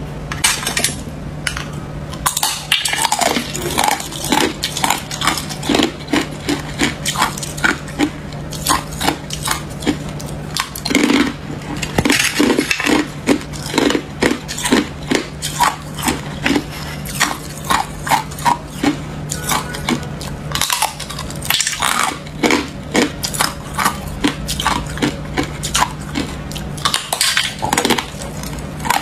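Hard ice being bitten and chewed: a dense run of sharp crunches and cracks, several a second, over a steady low hum.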